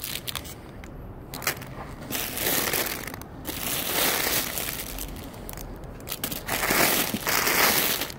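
Plastic bags of jewelry crinkling and rustling against a cardboard box as they are handled close to the microphone, in uneven spurts with brief pauses.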